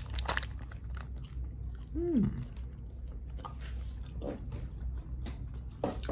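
A person biting and chewing latiao, a spicy wheat-gluten strip snack, close to the microphone, with many small clicks of chewing. About two seconds in there is a short falling hum from the eater.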